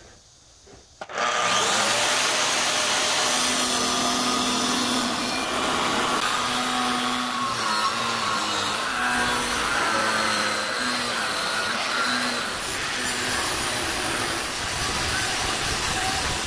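Angle grinder with an abrasive cut-off wheel cutting through a steel circular saw blade. The grinding starts suddenly about a second in and runs steadily, with a faint whine in it.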